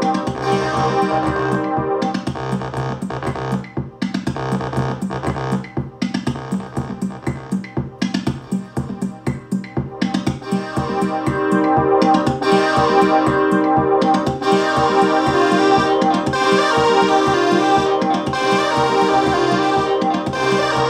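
Several Korg Volca synthesizers and drum machines play a sequenced electronic loop together, with a steady beat under synth bass and keys, mixed through a Volca Mix. Parts are pulled down in the middle, and the full mix comes back up louder about twelve seconds in.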